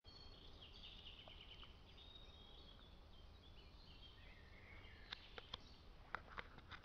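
Faint woodland ambience with small birds chirping thinly, then a handful of sharp clicks in the last two seconds.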